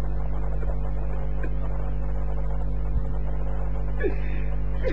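Steady electrical mains hum, with a few faint voice sounds near the end.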